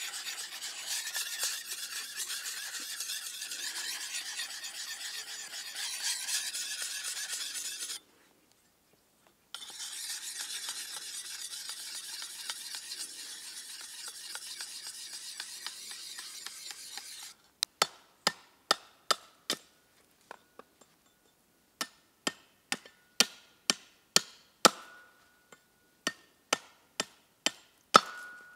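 Steady rasping as something is rubbed and worked over by hand, likely sanding or polishing the cleaver, with a short pause a third of the way in. About two-thirds through it gives way to sharp, separate chops of a cleaver blade into wood, one or two a second, each with a faint ring.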